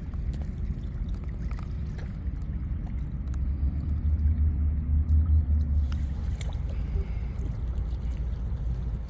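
Water sloshing and gurgling over a steady low rumble that swells for a couple of seconds in the middle, with scattered light clicks.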